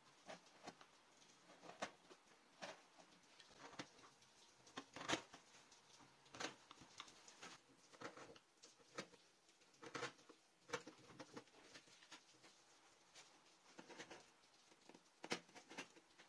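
Faint, irregular small clicks and taps, a few a second. The sharpest comes about five seconds in.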